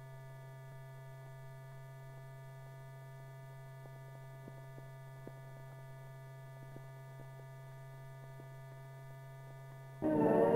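Steady electrical hum on an old film's soundtrack, with faint scattered clicks from dust and scratches on the print. About ten seconds in, orchestral music starts abruptly.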